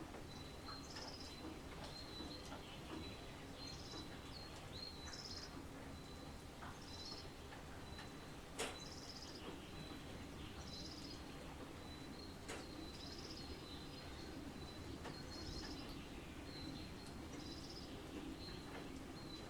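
A songbird repeating a short, high chirping phrase every second or two over a steady thin high tone and a low even hiss, with a few sharp taps, the loudest about eight and a half seconds in.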